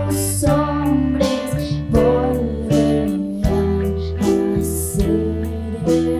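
A girl singing a song over an instrumental accompaniment with sustained bass notes and a steady beat of about two strokes a second.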